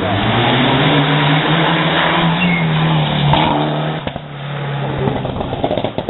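Rally car engine running hard at high revs as the car passes on the stage, the note held steady for about three seconds. Near four seconds in the note breaks, then pulls again briefly before dropping away.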